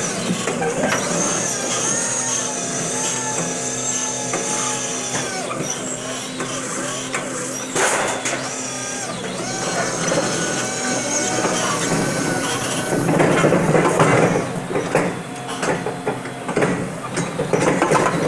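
Crown electric stand-up reach truck working its mast: a steady hum with a high whine from the electric drive and hydraulics. In the last few seconds this gives way to rattling and clanking as the forks and pallet are worked at the rack.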